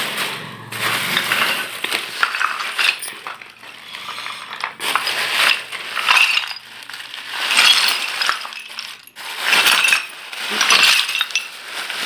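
Small fired-clay cups and chunks of roasted Multani mitti clinking, clattering and scraping against one another as they are handled, in repeated rattling bursts every second or two.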